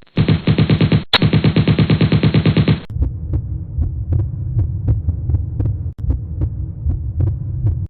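Added sound effects: a rapid rattling pulse, about ten beats a second, for the first three seconds, then a low throbbing hum with faint regular ticks.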